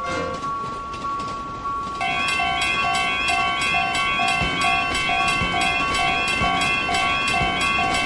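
Animated railroad crossing warning bell starting about two seconds in: a fast, even two-tone ding-ding alarm over a steady electronic tone. A tail of music fades out just before it.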